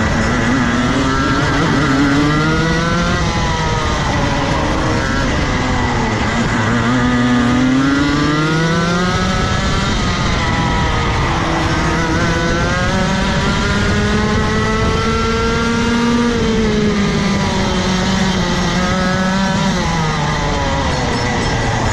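Rotax Max Evo 125cc single-cylinder two-stroke kart engine heard onboard at racing speed, its pitch rising as it revs out along the straights and falling back as it slows for the corners, several times over.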